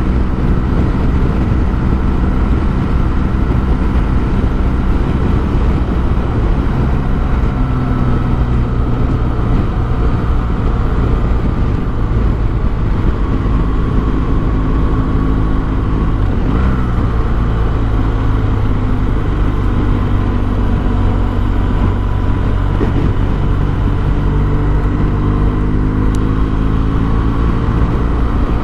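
Motorcycle engine running at road speed, with heavy wind noise on the microphone. The engine note shifts abruptly about halfway through and climbs steadily near the end as the bike accelerates.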